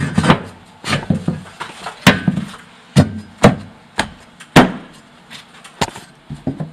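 A series of sharp knocks and bangs, about a dozen at uneven spacing, thinning out near the end, as a steel floor-reinforcing piece is knocked into place.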